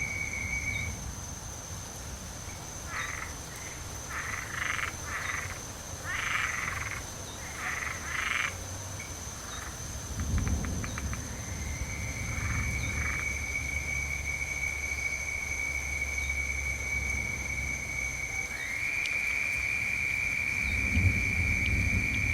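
Frogs croaking in clusters of short pulsed calls, over steady high-pitched trilling, with low thunder rumbling twice in the background.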